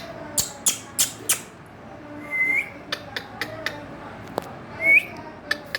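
Indian ringneck parakeet giving a run of short, sharp chirps about twice a second, with two brief rising whistles, about halfway through and near the end, the second one loudest.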